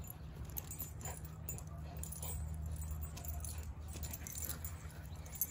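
A Siberian husky and a yellow Labrador puppy playing tug of war with a rope toy: collar tags jingling and scattered scuffling clicks as they pull, over a low steady hum.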